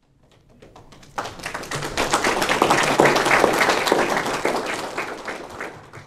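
Audience applauding: scattered claps at first, swelling into full clapping about a second in, then thinning out near the end.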